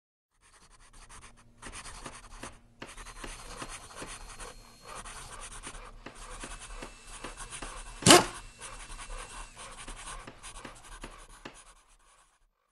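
Pencil scratching across paper as a sketching sound effect, with a regular faint clicking about three times a second and one sharp, loud hit about eight seconds in.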